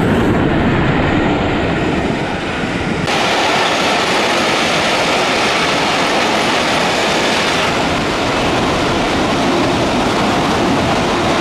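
Steam-hauled passenger train behind A1 Pacific 60163 Tornado passing close by: a loud, steady rush and rumble of coach wheels on the rails. The sound changes abruptly at edits about three seconds in and again near eight seconds.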